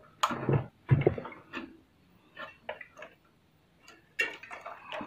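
Irregular clicks and rubbing of plastic parts as an opened Panasonic mini stereo is handled and a flexible cable is pulled from its connector. There are about a dozen short handling noises, with a busier cluster near the end.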